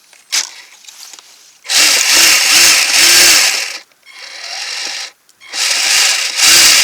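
Kyosho Blizzard RC snowcat's electric drive motor revved in quick throttle blips, the tracks grinding with packed fresh snow built up in them. There are three short rising-and-falling revs about two seconds in and another near the end.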